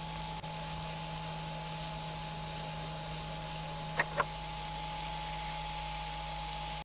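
Frying pan on a portable gas stove: a steady low hum and hiss, with two sharp clicks close together about four seconds in.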